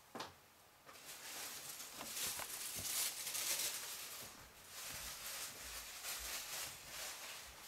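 Scratchy rustling close to the microphone as a tabby kitten noses, paws and bites at a fabric toy on carpet. It comes in irregular waves, loudest about three seconds in.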